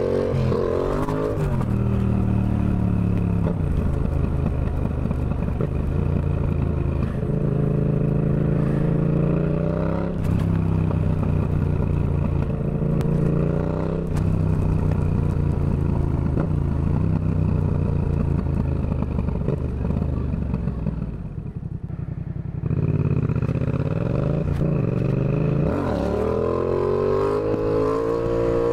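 Yamaha XSR700 parallel-twin engine through a Shark SRC 4 aftermarket silencer, accelerating through the gears. The pitch climbs and drops back at each shift, about ten and fourteen seconds in. The engine goes quieter and lower on a closed throttle for a second or two a little past two-thirds of the way, then pulls up in pitch again toward the end.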